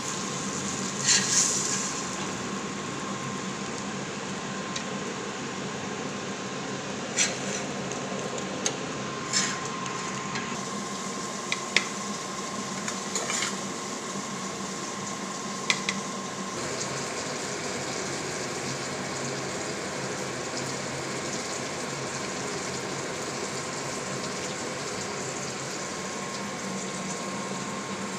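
A few sharp clinks of a metal serving utensil against a plate in the first half, over a steady hum and hiss.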